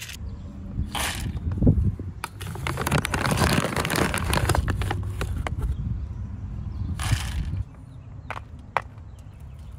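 Plastic bags and packaging rustling and crinkling while being rummaged through by hand, with scattered clicks and knocks, busiest in the middle. A low rumble underneath stops abruptly about three-quarters of the way in, leaving a few faint clicks.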